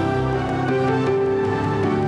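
Instrumental opening theme music of a television talk show, with held notes that move from pitch to pitch at a steady level.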